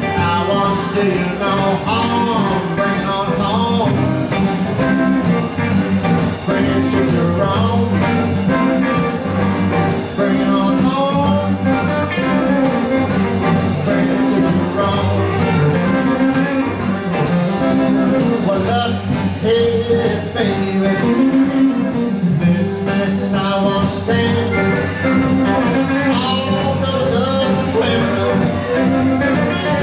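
Live electric blues band playing, led by a Telecaster-style electric guitar, with singing over a steady beat.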